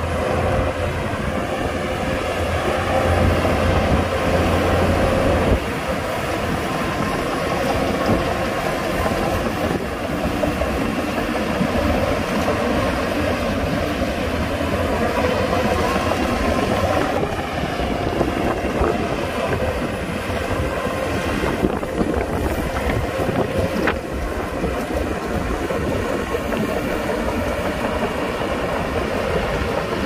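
Diesel engine of a Shantui DH17 crawler bulldozer running under load as it pushes soil, with the clanking of its steel tracks. It is a little louder for a couple of seconds near the start.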